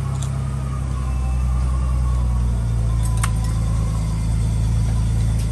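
An engine idling steadily with an even low hum, and one light click about three seconds in.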